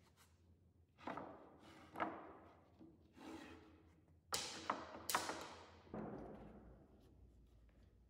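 Rough-sawn wooden boards knocking against each other as they are shifted and lifted off a stacked pile: a handful of separate wooden knocks that echo, the loudest two about four and five seconds in.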